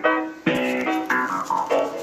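Music with a melody of short changing notes, played loud through a repaired Electro-Voice EVM15B 15-inch speaker on its own, with little deep bass.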